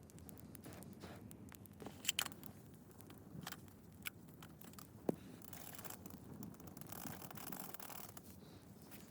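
Quiet scraping and rustling, broken by scattered sharp clicks, the loudest about two seconds and five seconds in, and a longer stretch of hissing scraping in the middle.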